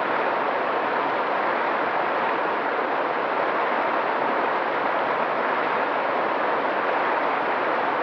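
Mountain stream flowing over rocks: a steady, unbroken rush of water.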